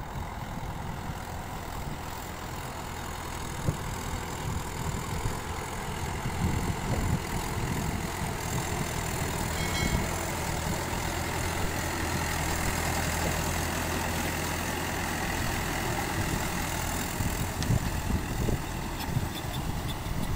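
Mahindra 595 Turbo tractor's diesel engine running steadily as it pulls a leveller through a flooded paddy field. It grows a little louder midway as the tractor passes nearest.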